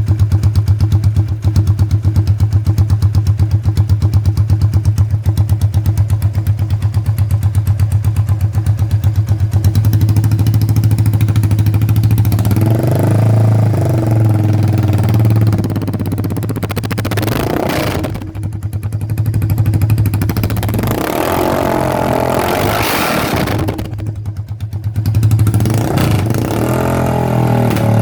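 Italika FT250TS motorcycle's 250 cc engine running with the exhaust removed, very loud. It idles steadily with even pulses for about the first ten seconds, then is revved several times, the pitch rising and falling with each blip of the throttle.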